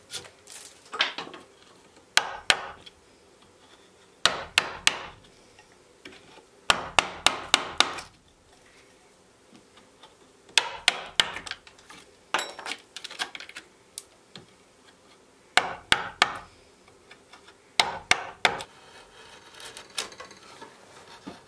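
Wood chisel being struck into a pine board to chop out the waste between bored holes: sharp strikes in short bursts of three to six every couple of seconds. Near the end, quieter paring and scraping of the chisel through the wood.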